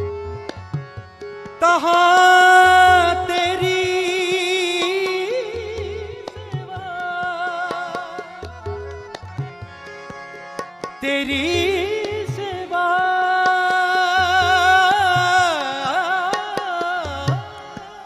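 Shabad kirtan music: tabla keeping a steady rhythm under long held melody notes with a wavering vibrato, which swell in louder about a second and a half in and again about eleven seconds in.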